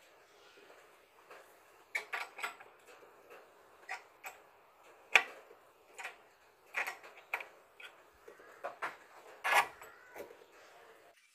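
Irregular clicks and knocks of hard metal and plastic parts being handled as a geared motor and its bracket are fitted onto an aluminium extrusion frame, about a dozen in all, the loudest about five seconds in and another near the end.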